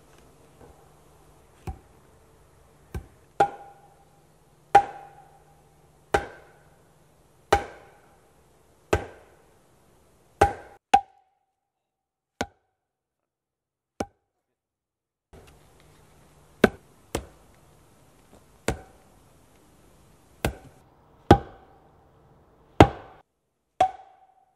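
A wooden post being driven into the ground by pounding its top with a heavy log used as a mallet: steady wood-on-wood blows about every second and a half, each a hollow knock with a brief ring. Near the middle come a couple of lighter knocks.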